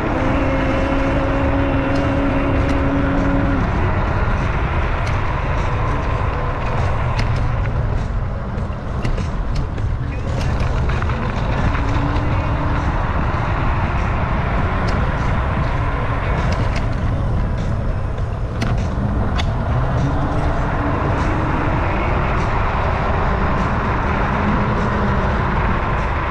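Wind rushing over the microphone of a moving rider, with the whine of an electric motor held steady for the first few seconds and briefly rising again twice later on. Scattered light knocks come from road bumps.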